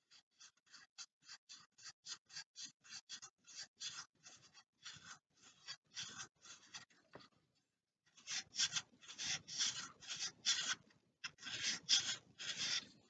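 Rolled sandpaper rubbed in short, quick strokes around the inside of a laminated balsa model tyre, shaping its inner profile. About three to four strokes a second at first, a brief pause a little past halfway, then longer, louder strokes.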